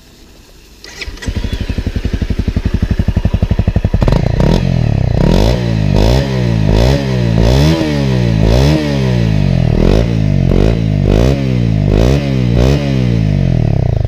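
Stock Honda CRF250L single-cylinder trail bike engine starting about a second in and idling. From about four seconds in it is blipped through about a dozen quick revs in a row, then it settles back to idle near the end.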